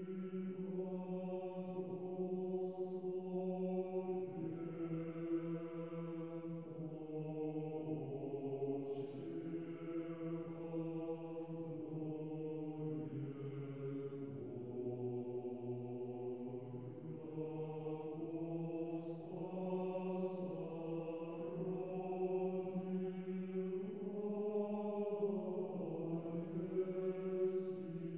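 Slow vocal chant in low voices, held notes that change pitch every second or two over a steady low drone note, with words sung.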